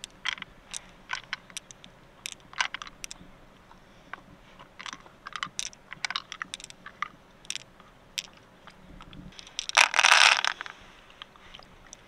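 Freshwater pearls clicking against each other and the mussel shell as they are picked out of the wet flesh, a scattered run of small sharp clicks. Near the end a handful of pearls is tipped into an open shell full of pearls, a loud clattering rattle lasting about a second.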